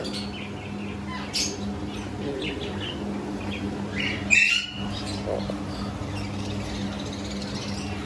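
Caged parakeets chirping and calling over a steady low hum, with one louder, sharp squawk-like sound about four seconds in.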